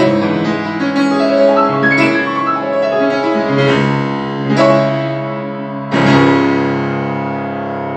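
Grand piano playing a classical piece: busy passage-work, then a few loud chords struck in the second half, the last one held and left ringing.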